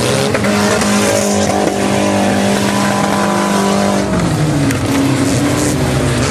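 Demolition derby car engine revving hard, held at steady high revs for about four seconds and then dropping and wavering.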